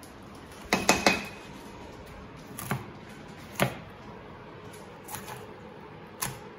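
Butter knife scraping and clicking over a fish's bones while a fillet is cut away from the backbone. A quick cluster of sharp clicks comes about a second in, then single clicks about every second.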